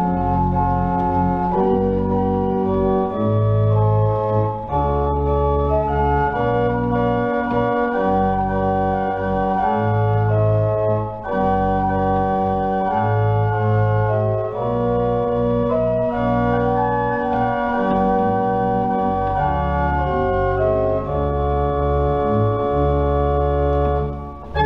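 Pipe organ playing slow, full chords over a deep bass line, the held chords changing every second or two.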